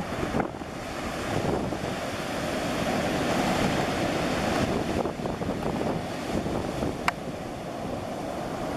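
Choppy sea surf washing in, with wind buffeting the microphone in a steady, heavy rush. A single sharp click about seven seconds in.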